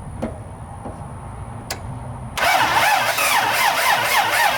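Starter motor cranking the Toyota FJ60 Land Cruiser's 2F straight-six engine: a loud whirring whine that rises and falls rhythmically. It starts abruptly about two and a half seconds in.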